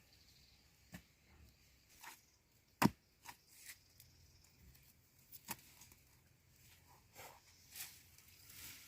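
Scattered, irregular sharp knocks and snaps, faint overall, with one louder crack a little under three seconds in.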